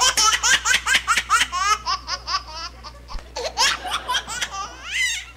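Audience laughing hard, with quick high-pitched peals of laughter and a brief lull about three seconds in.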